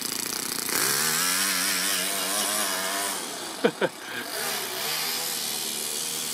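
Toyan FS-S100 single-cylinder four-stroke overhead-cam engine in an RC car revving as the car accelerates away, its note wavering and climbing and then settling lower and steadier as the two-speed gearbox shifts into second. A little past halfway comes a brief, sharp falling squeal.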